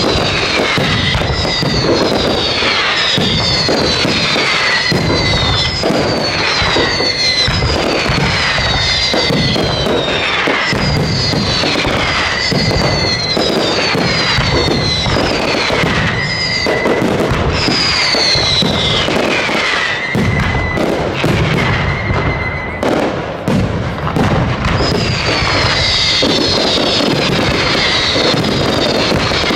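Fireworks going off in a dense barrage of bangs and crackles, with whistling shells falling in pitch about once a second.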